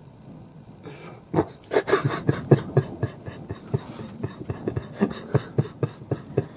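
Laughter: short, pitched bursts several times a second, starting about a second and a half in.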